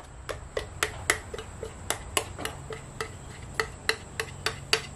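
Steady, even ticking, about three and a half light ticks a second, each with a short ring, over a faint low hum.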